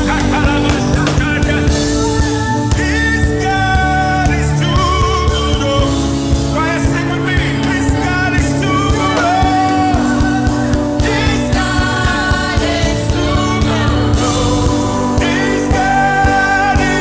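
Live gospel worship music: a singer carries a melody over a band with a steady beat.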